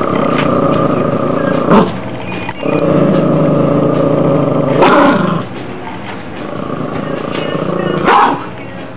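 Small dog guarding a chew bone: three long, steady growls, each ending in a sudden loud snarl.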